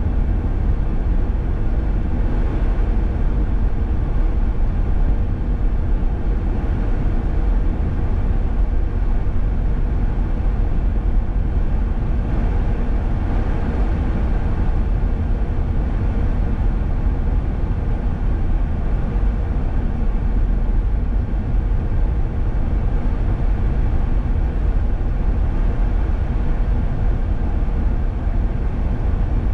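Steady road noise of a car being driven: a constant low rumble of tyres and engine, with a few faint steady tones above it.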